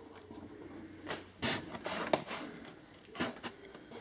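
Camera handling noise: a few scattered knocks and rubs as a handheld camera is moved about and positioned.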